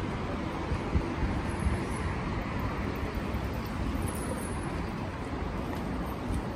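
Steady city street noise of road traffic, with a couple of brief bumps about a second or two in.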